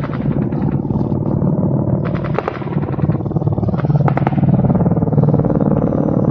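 Mi-8 military helicopters flying past: a loud, steady, rapid chopping of the rotors over a low engine drone. A few sharp cracks cut through about two and four seconds in.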